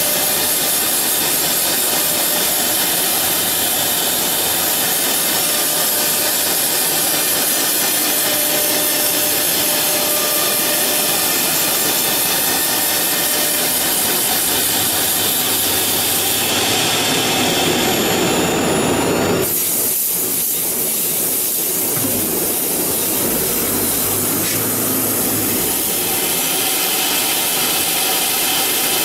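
CNC wood router's spindle running at high speed, its bit routing a carving into a wood panel: a steady, loud hiss and whine of cutting. About two-thirds of the way through, the lower cutting noise drops off abruptly.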